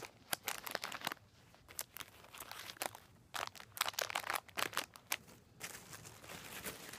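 Clear plastic bags crinkling as bagged squishy toys are handled and set down, in irregular crackles that die down about five and a half seconds in.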